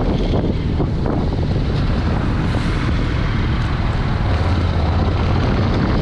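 Motorcycle under way at town speed: a steady low engine rumble under heavy wind noise on the microphone. A deeper steady hum comes up about four seconds in.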